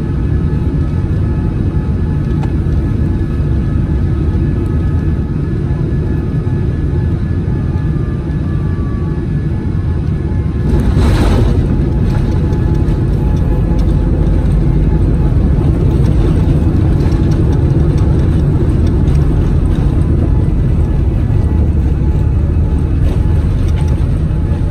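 Steady in-flight cabin noise of a Boeing 787-9 airliner: a loud, low rumble of airflow and engines. About eleven seconds in there is a brief rush of noise, and after it the rumble is a little louder.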